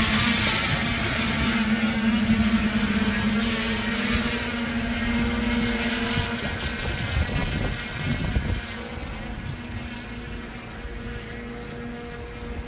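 Electric motors and propellers of a Titan Dynamics Narwhal VTOL aircraft hovering and climbing: a steady buzzing drone with a pitched hum, growing fainter as the aircraft rises away.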